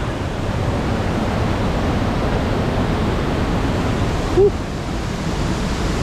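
Steady rushing of a nearby waterfall and stream, an even loud hiss of falling water.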